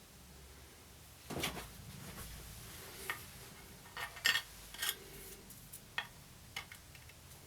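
Small metal parts and tools clinking and tapping while a guitar is taken apart: a short scrape a little over a second in, then a handful of sharp separate clinks, the loudest just past halfway.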